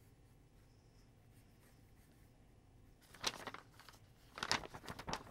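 Pencil strokes scratching on drawing paper: quiet at first, then one short stroke about three seconds in and a quick run of strokes near the end.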